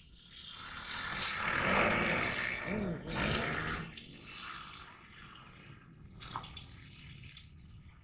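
Dirt bike engine revving as it rides the track. It swells about a second in, is loudest around two to three seconds with a quick dip and rise in pitch, and fades away by about four seconds.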